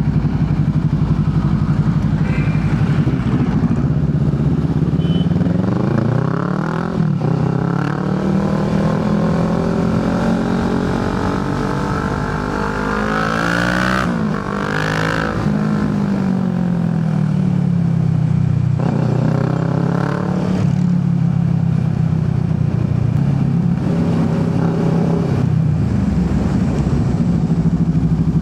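Motorcycle engine under way, its pitch climbing as it accelerates for several seconds, dropping sharply at a shift about halfway through, then running at a steadier speed.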